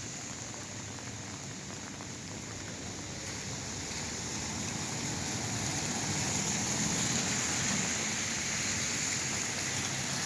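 Heavy rain and traffic on a wet city street: a steady hiss of rain and tyres, with a vehicle's engine hum and tyre spray swelling louder from about four seconds in.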